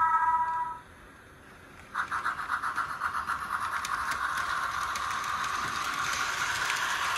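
Model steam locomotive's sound system: a chime whistle cuts off just under a second in. About two seconds in, rhythmic steam chuffing starts, several beats a second at first, then quickening into a steady chuff as the engine pulls away.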